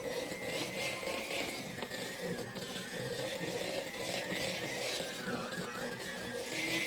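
Batter being mixed in a bowl: continuous scraping and stirring as dry flour mix is worked into a creamed butter-and-sugar mixture.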